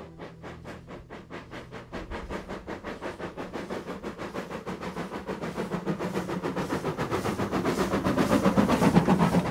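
Terrier steam tank locomotive working a train, its exhaust beating at about four a second and growing steadily louder as it approaches, loudest near the end.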